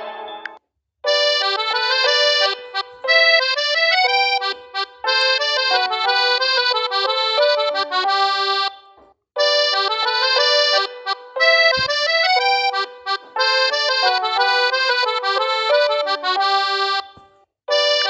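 A Huawei Y7 2019 ringtone: an instrumental melody of many quick notes. It starts about a second in, breaks off after about eight seconds, and then plays again from the start.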